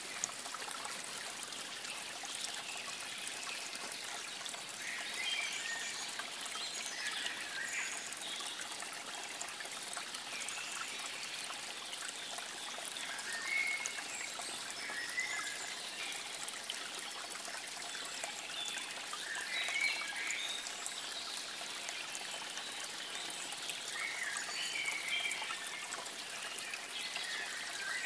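Water trickling steadily, with brief high chirps every few seconds over it.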